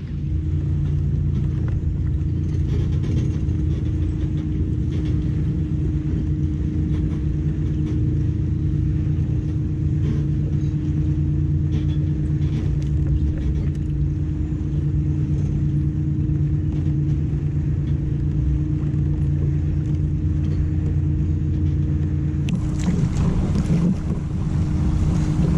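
A boat engine running steadily, a low drone with a constant pitch. Near the end a rushing hiss joins it.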